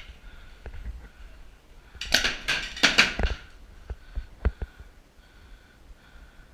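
Magazine-fed paintball marker firing a quick string of about half a dozen shots, lasting just over a second, about two seconds in. A few single sharp knocks follow.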